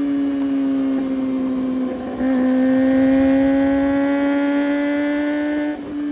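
Kawasaki Ninja ZX-25R's inline-four engine, through a Yoshimura aftermarket exhaust, running at high revs under way. The note breaks briefly about two seconds in, comes back louder and climbs slowly, then dips again for a moment near the end.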